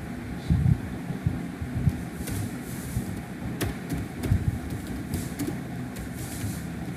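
Computer keyboard keys clicking as a word is typed: a handful of separate keystrokes over a steady low background rumble.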